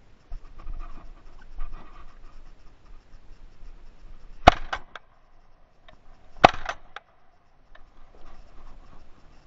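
Two shotgun shots fired at thrushes in flight, about two seconds apart, each followed by a couple of fainter cracks, with rustling of the gun being handled in between.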